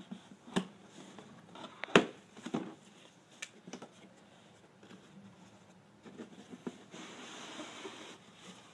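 Cardboard box being handled and opened: a few taps and knocks, the sharpest about two seconds in, then steady rustling of cardboard and paper near the end as the lid flap is folded back.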